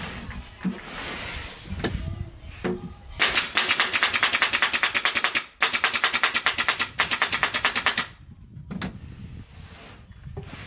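Pneumatic nail gun firing a fast run of shots into the wooden panels of a subwoofer box, about seven sharp clacks a second. There are two runs of a couple of seconds each, with a brief pause between them. Lighter knocks of panels being handled come before and after.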